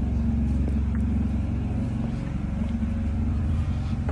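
An engine running steadily at a constant speed: a low, even hum.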